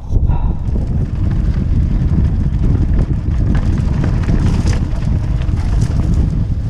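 Wind buffeting the action camera's microphone during a fast mountain bike descent, a loud low rumble that starts abruptly and holds, with scattered clicks and rattles from the bike and tyres on the dirt trail.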